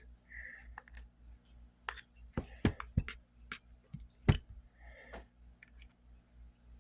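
Small metal parts of a Raven Arms P25 pistol clicking and tapping as the gun is handled during oiling and reassembly: a string of short, irregular clicks, the loudest about four seconds in.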